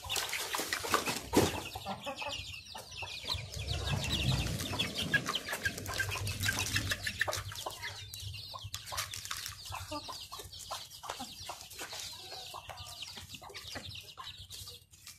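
A flock of young chickens clucking and calling in short repeated notes, with a low rumble about four to seven seconds in.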